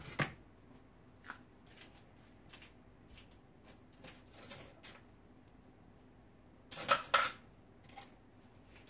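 Scattered light clicks and knocks of kitchen items being handled, with a louder short clatter about seven seconds in.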